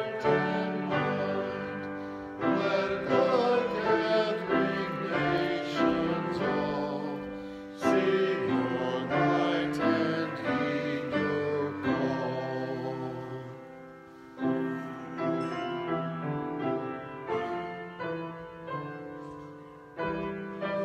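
Slow piano music: chords struck and left to ring and fade.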